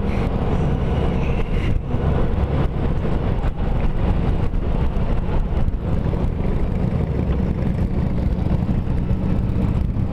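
Honda Gold Wing motorcycle cruising on the road: a steady low engine drone mixed with wind and road noise, with brief gusts of wind buffeting.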